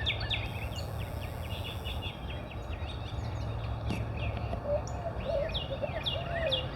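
Several wild birds calling: a run of short, repeated high chirps, joined about halfway through by a lower, warbling call.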